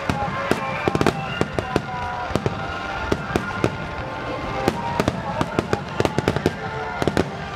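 Fireworks going off: many sharp bangs and cracks in quick, irregular succession.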